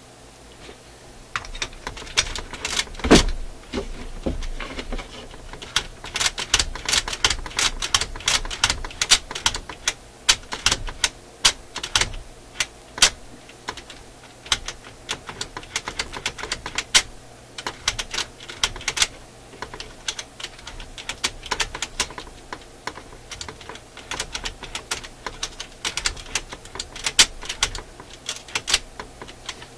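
Rapid, irregular metallic clicking and clacking of a record player's automatic shut-off linkage being worked by hand, its levers and spring-loaded parts snapping against each other, with one louder knock about three seconds in. The mechanism is dragging at a friction point that has just been sprayed with lubricant.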